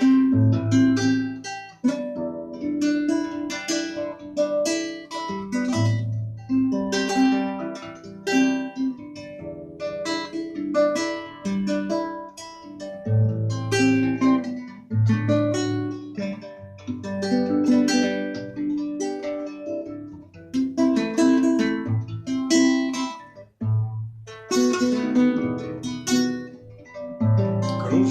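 Guitar playing chords, with struck chord strokes and low bass notes ringing throughout.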